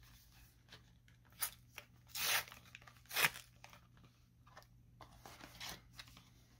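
Foil wrapper of a Magic: The Gathering theme booster pack being torn open by hand in a few short rips, the loudest about three seconds in, then lighter crinkling of the torn wrapper.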